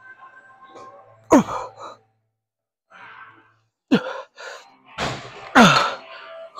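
A man's grunts of effort while straining through leg extensions: three sharp cries that drop quickly in pitch, with a heavy breath between them.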